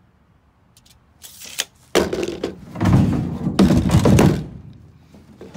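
A plywood drawer box being shifted and pushed into place: a few seconds of wooden thumping and scraping, starting about two seconds in.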